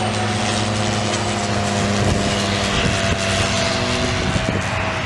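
Single-engine propeller aircraft flying overhead, its engine and propeller running at a steady pitch over a wide rushing hiss.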